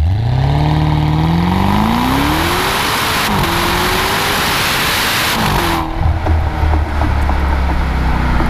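Maserati Ghibli Trofeo's Ferrari-derived 3.8-litre twin-turbo V8 exhaust under hard acceleration. The note climbs steadily in pitch, dips briefly at an upshift about three seconds in, and climbs again. Near six seconds in it drops away to a lower, steadier note as the throttle eases.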